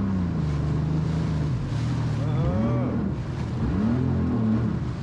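Jet ski engine running steadily at low throttle, with wind and water noise around it. Partway through comes a man's low, wavering moan.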